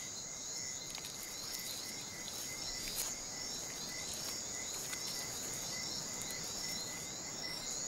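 Insect chorus: a continuous high trill with short rising chirps repeating two or three times a second, over a soft hiss.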